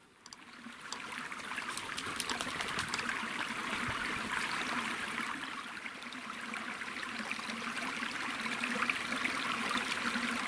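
Running water of a small forest stream, a steady babbling with many small splashes that starts abruptly just after the beginning.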